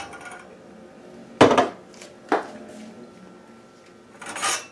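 Kitchenware clattering around a stainless steel saucepan: a loud clunk about a second and a half in, a sharper knock about a second later, and a short scrape near the end.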